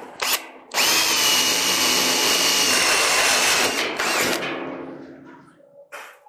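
Makita 18 V cordless drill boring a spot-weld hole through a sheet-steel floor pan: a couple of short blips of the trigger, then about three seconds of steady drilling with a high whine from the bit cutting the steel, dying away once it is through. A short click near the end.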